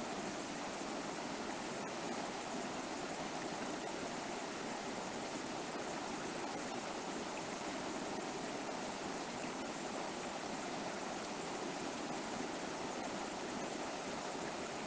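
River water flowing steadily over rocks, an even rushing noise.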